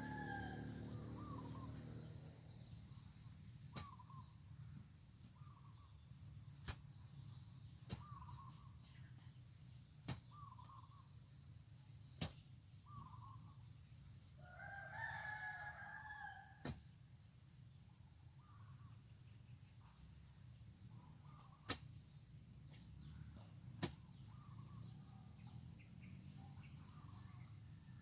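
A rooster crows, one call tailing off in the first second and another about halfway through, over faint short bird chirps, a few sharp clicks and a steady high insect drone.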